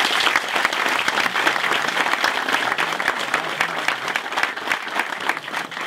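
A small audience applauding: steady, dense clapping that thins out near the end.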